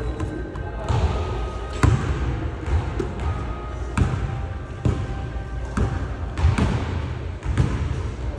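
A basketball bouncing on a hardwood gym floor, one sharp bounce about every second.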